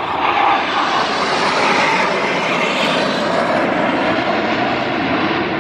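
Loud, steady roar of the jet engines of an aerobatic formation flying over.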